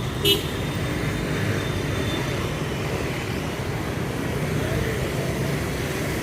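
Steady street traffic noise, with a brief high-pitched sound just after the start.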